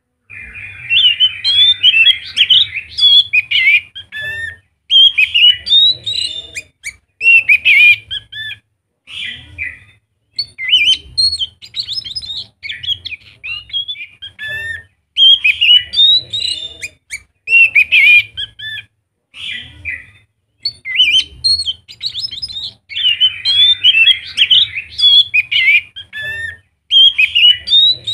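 Anis macan thrush in full, vigorous song: loud phrases of rapid, varied whistles and chirps, one every second or two with short pauses between them.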